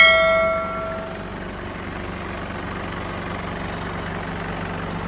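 Forklift engine running steadily at idle. A metallic clang rings out at the start and dies away over about a second.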